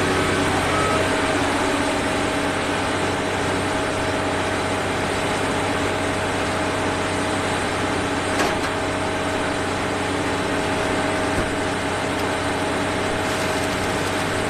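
Combine harvester running steadily, its engine and machinery giving a constant hum with a steady whine, and a brief click about eight seconds in.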